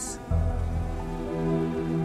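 Background film music with long held notes; a low steady tone comes in about a third of a second in.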